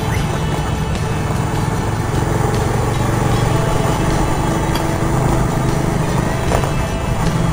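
Honda automatic scooter riding at steady speed, its engine running evenly under a constant rush of wind over the microphone.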